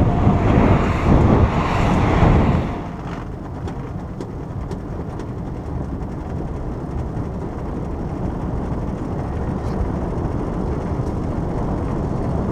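Riding noise from a carbon Quest velomobile: wind and road noise that drops suddenly about two and a half seconds in to a quieter, steady low rumble of its tyres rolling, with a few faint clicks.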